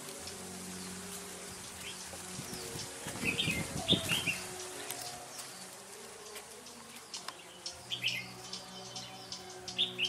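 Red-whiskered bulbuls calling in short chirps. About three to four seconds in comes a flurry of wing flapping with the loudest calls, then a run of short sharp ticks and chirps in the last few seconds.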